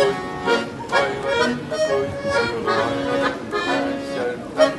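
Piano accordion playing a tune: a melody line over chords accented about twice a second.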